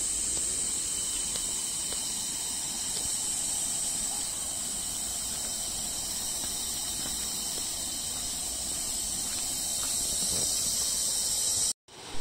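Insects droning steadily in one high, shrill band over a faint low rumble, cutting out abruptly near the end.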